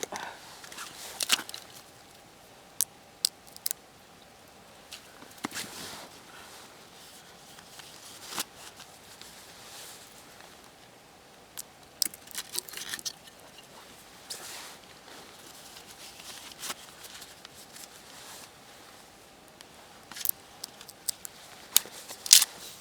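Irregular sharp snaps and tearing as bark and small wood chips are broken off by hand for campfire kindling, loudest near the end.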